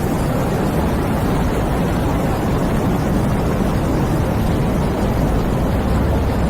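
Wind sound effect: a steady rush of wind, deepest in the low rumble, holding an even level without gusts or breaks.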